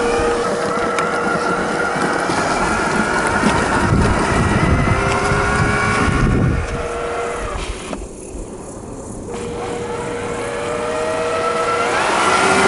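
Whine from a Tamiya CC-01 RC car's 55-turn brushed electric motor and gearbox, its pitch rising and falling with the throttle. A coarse rumble comes in for a couple of seconds midway. The whine drops away briefly about eight seconds in, then climbs again near the end.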